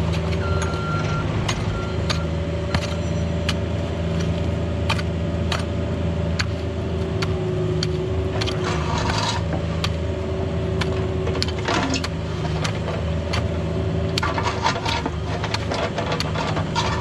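Cat 304 mini excavator's diesel engine running at steady high revs, with a steady hydraulic whine over it. Repeated sharp knocks and scrapes come from the bucket digging through dirt and stones.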